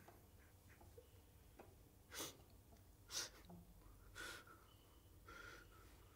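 A man sniffling while crying, four short faint sniffs about a second apart.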